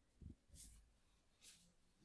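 Faint rubbing of a masseur's hands over skin: two soft swishes about a second apart, with a dull low bump just before the first.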